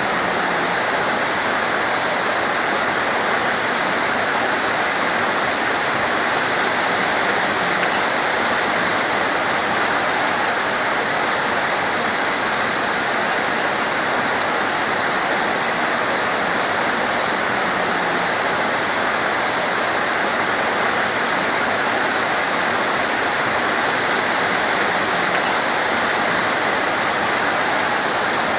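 Heavy rain pouring down steadily, a dense even hiss with no let-up. A single brief tick about halfway through.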